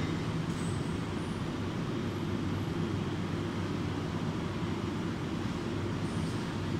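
Steady low rumble and hum of background machinery, unchanging throughout.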